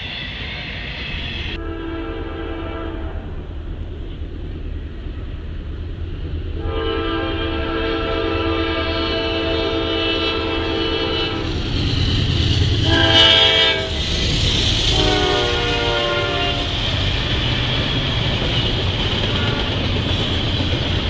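Freight locomotive horn sounding the grade-crossing signal, a chord of several notes: two long blasts, one short, then a final long one whose pitch dips slightly. Under it and after, a double-stack intermodal freight train rolls steadily over the rails.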